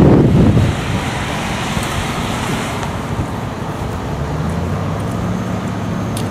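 Wind buffeting the microphone dies away within the first second. It gives way to steady motor-vehicle noise, with a low engine hum coming in from about four seconds in.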